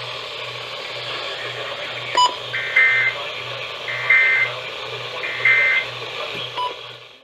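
Emergency Alert System end-of-message data signal: three short warbling digital bursts about a second and a half apart, marking the end of the alert. Heard over a radio's static hiss with a low pulsing hum, with a faint click before the first burst and another after the last.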